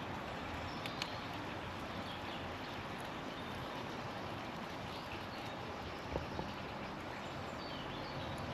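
Steady outdoor background hiss with a few faint high chirps and a couple of soft clicks.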